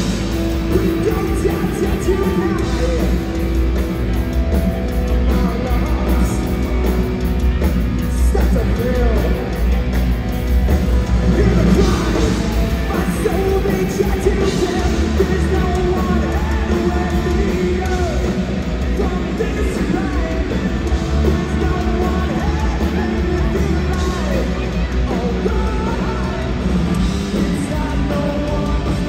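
Punk rock band playing a song live at full volume, with a singer's voice over the band.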